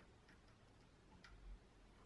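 Near silence, with a few faint, short ticks.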